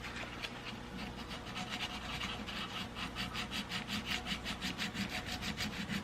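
Fine sandpaper wrapped around a file, rubbed back and forth over a steel pistol slide stop lug to round and polish it, in quick even strokes, about four or five a second.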